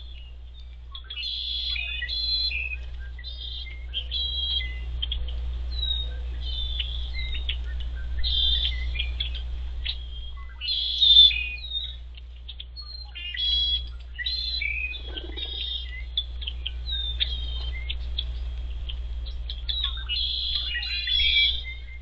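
Birds chirping and calling in short, repeated bursts, the loudest about halfway through, over a steady low hum.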